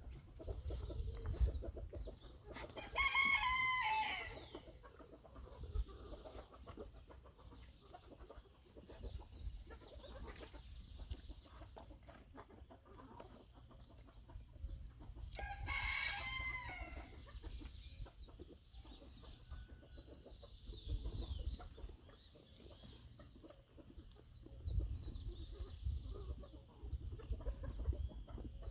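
A rooster crows twice, about three seconds in and again about fifteen seconds in, over faint chirping of small birds.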